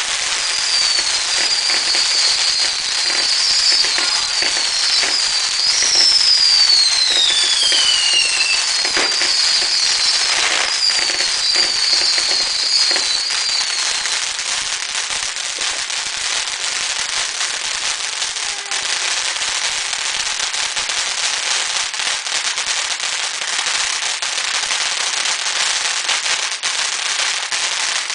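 Dominator "Bucket of Fireworks" ground fountain burning, with a dense steady crackle of sparks. Through the first half, a run of short whistles each slides down in pitch, with one longer whistle falling steeply. The crackle goes on until it stops abruptly at the end.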